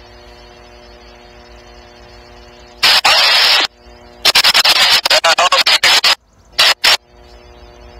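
Wind gusts buffeting the microphone in loud, choppy blasts, about three seconds in and again from about four to six seconds, over a steady low hum.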